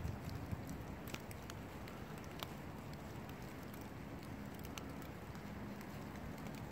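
Light rain pattering on damp fallen leaves: a soft steady hiss with a few faint drop ticks here and there.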